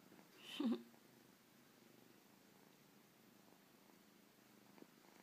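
Young kitten purring steadily and softly. About half a second in there is one brief, louder sound, and a faint click near the end.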